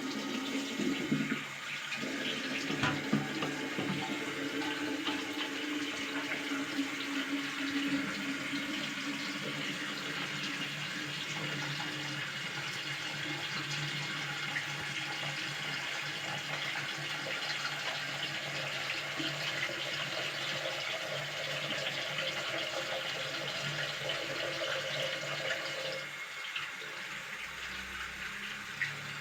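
Tap water running steadily into a sink during hand washing, the flow easing off near the end, followed by a short click.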